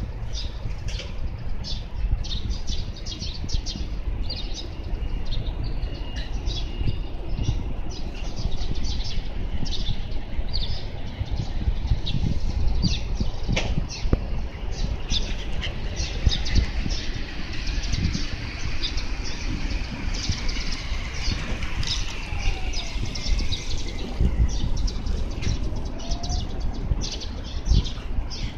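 Street ambience: a steady low rumble of traffic, with many short chirps of small birds scattered throughout.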